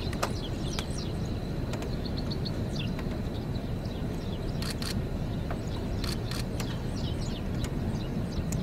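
Steady wind noise on the microphone, with small birds chirping in short falling calls throughout and a few sharp clicks around five and six seconds in.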